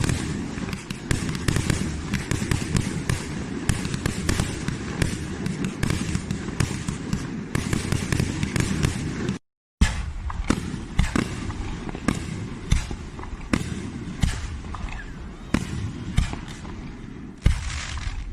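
Fireworks crackling: a dense, rapid run of small crackles and pops, cut off abruptly about nine and a half seconds in, then resuming as sparser, sharper crackles.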